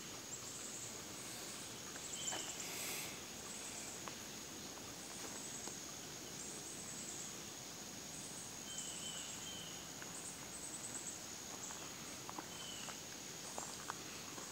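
Woodland ambience: a steady high insect drone, with a bird repeating short falling chirps every few seconds and a few faint footsteps on the leaf-covered trail.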